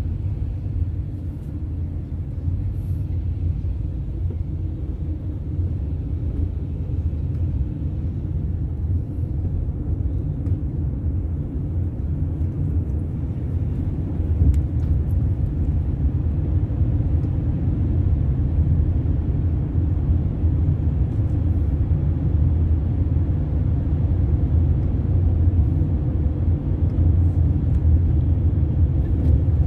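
Steady low road-and-engine rumble heard from inside a moving car, growing a little louder about halfway through as the car drives into a road tunnel.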